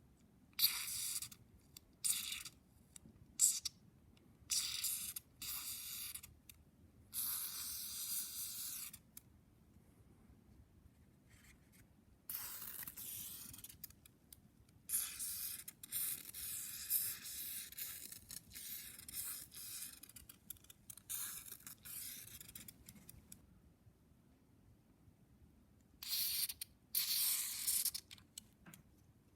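Carburetor parts being cleaned with short, sharp-edged hissing spray bursts, over and over, with a stuttering run of them midway and two more near the end.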